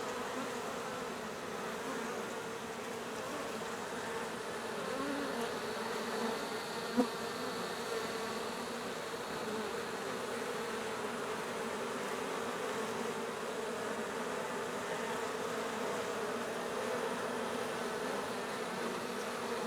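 Swarm of honeybees buzzing, a steady, many-voiced hum. A single short click sounds about seven seconds in.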